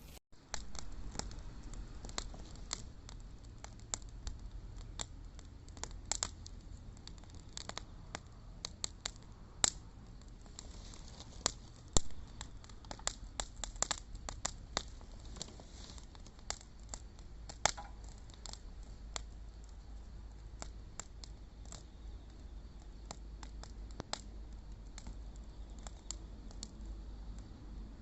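Wood bonfire crackling and popping: irregular sharp pops, several a second, over a low steady rumble, with one louder pop about twelve seconds in.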